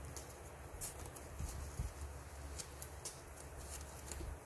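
Folded paper being handled by hand: light rustling with scattered small clicks and taps as the creased sheet is gripped and pressed, over a low steady hum.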